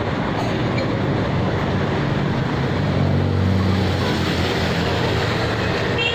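Steady city traffic noise, with a vehicle engine running close by and a low hum that shifts in pitch.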